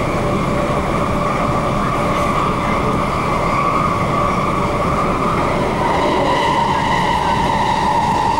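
MTR K-Train electric multiple unit running between stations, heard from inside the carriage: a steady rumble of wheels on rail under a constant whine, the whine shifting slightly in pitch about six seconds in.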